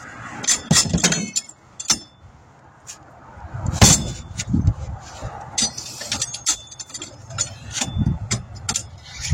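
Metal clinks, knocks and short rings of tire tools working on a wheel rim during a tire change, with gusts of wind buffeting the microphone.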